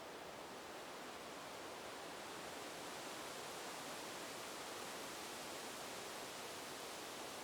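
Wind blowing through leaves: a steady, soft hiss with leafy rustling that swells a little about three seconds in.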